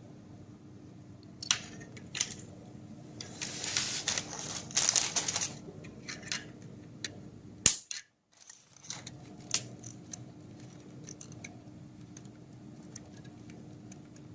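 Hands handling small plastic fiber-optic fittings: scattered clicks and rustles, a dense run of rapid ticking from about three to five and a half seconds in, and one sharp click just before eight seconds.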